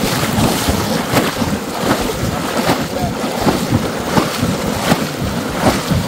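Splashing and sloshing through shallow floodwater in irregular strokes, with wind buffeting the microphone.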